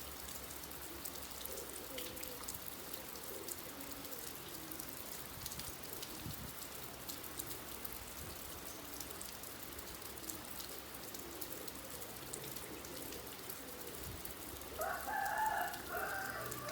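Steady rain with scattered drips, with faint low bird calls through the first part and a louder, choppy bird call near the end.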